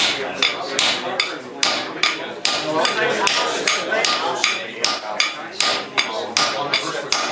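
Hand hammer striking hot or cold steel in a blacksmith's shop: an even run of blows, about two to three a second. Some blows are followed by a brief high metallic ring.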